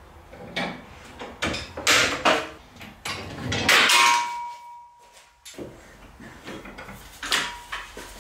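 Steel bar clamps being loosened and pulled off a wooden carcass: a run of metal clanks and clicks, the loudest about four seconds in leaving a ringing tone that fades after a second or so.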